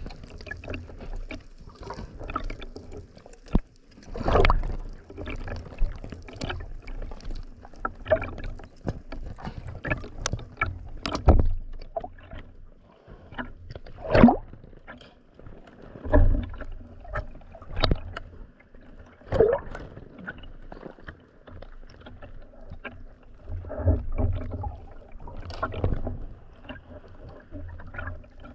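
Sea water sloshing and splashing around a speargun-mounted camera riding at the surface, in irregular surges every second or two.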